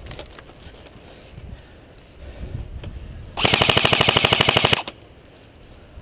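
Airsoft rifle firing one full-auto burst of about a second and a half, a rapid even rattle of shots about halfway through.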